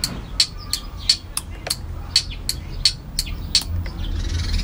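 A bird calling a rapid run of short, sharp notes, about three a second, over a faint low rumble.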